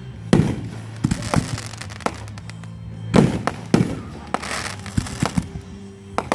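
Fireworks going off: a string of sharp bangs every half second or so, some followed by crackling, with music playing underneath.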